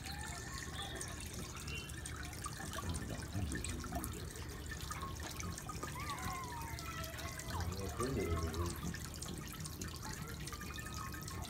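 Water running from the spout of a stone garden fountain and splashing down into its basin, a steady sound.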